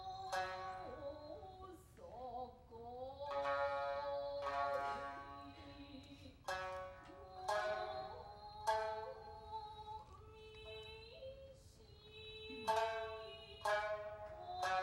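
Nihon buyō dance accompaniment: sharply plucked shamisen notes, each ringing and dying away, under a singer's long, sliding vocal line.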